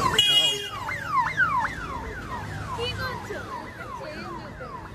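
Electronic alarm siren sounding a rapid series of falling whoops, about two a second, growing fainter toward the end, over low street noise.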